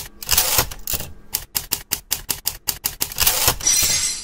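Typewriter keys clacking in a quick, even run, with a longer sliding sound near the end.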